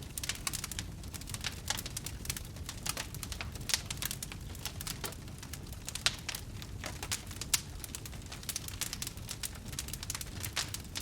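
Wood fire burning, with dense irregular crackling and snapping over a low steady rumble of the flames, and a few louder pops.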